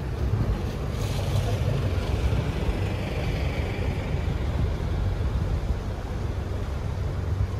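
A motorboat's engine running steadily at low speed, a low rumble.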